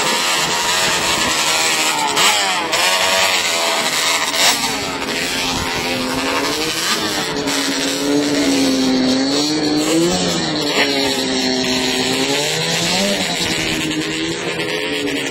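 Racing ATV engines revving hard, their pitch climbing and then dropping back several times as they accelerate and shift, over a steady rushing noise.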